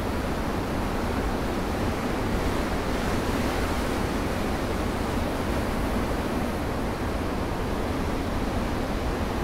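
Surf breaking and washing over a rocky shore: a steady, dense rush of white water that swells slightly a couple of seconds in.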